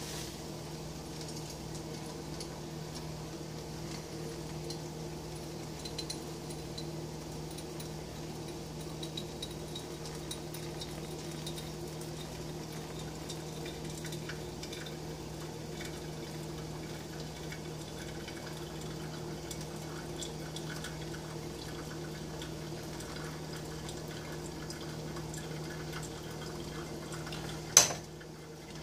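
Hot water poured slowly from a saucepan into a paper pour-over coffee filter over a glass carafe, a faint steady trickle. Near the end, a sharp clank as the metal saucepan is set down on the stove.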